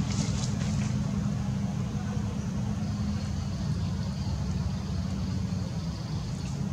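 A steady low rumble with a faint thin high whine entering about three seconds in.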